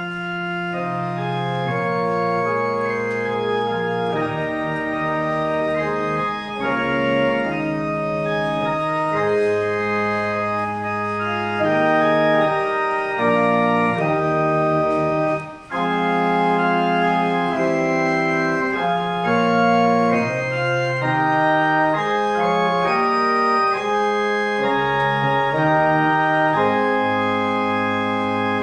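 Church pipe organ playing slow, sustained chords that change every second or so, with a short break in the sound about halfway through.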